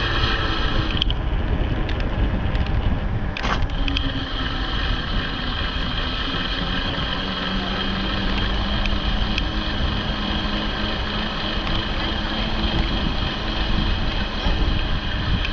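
Electric bikes riding along: wind rushing over the microphone with the steady whine of the motors, and a short knock about three and a half seconds in.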